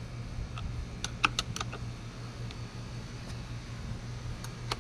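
Scattered light clicks and taps of a hand tool on the chainsaw's side-cover bolts as they are screwed back down and tightened, a cluster of them in the first second and a half and a few more near the end, over a steady low hum.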